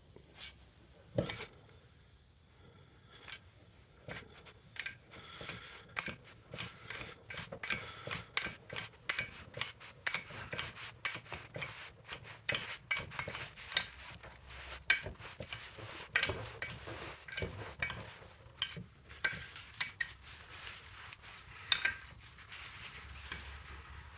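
Wrench working a nut welded onto a rusted, twisted-off exhaust manifold bolt in a cast iron cylinder head, giving many quick, irregular metal clicks and clinks as the bolt is turned out. A few scattered clicks come first, then a dense run of them that stops near the end.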